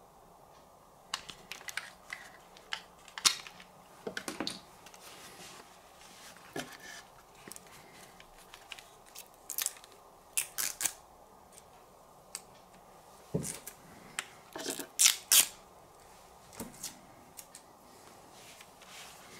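Handling noise as headphones and their packaging are picked up and moved: scattered clicks, taps and rustles, with a run of louder clicks about three quarters of the way through.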